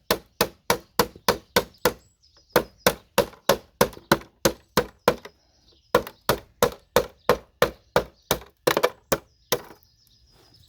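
Hammer driving a flat tool under motherboard RAM slots to knock them off the board, in quick even blows about three a second, with two short breaks. The hammering stops about a second before the end.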